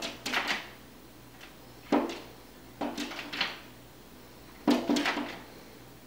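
Pileated woodpecker pecking at the glass of a patio window, attacking its own reflection: bunches of sharp knocks on the glass every second or two, heard from the inside of the pane.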